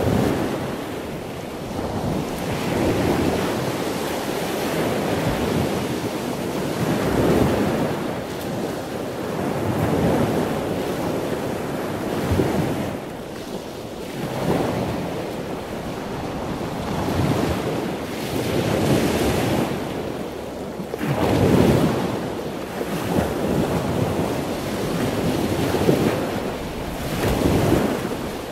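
Sea waves surging and washing in swells every few seconds, over a steady wind hiss.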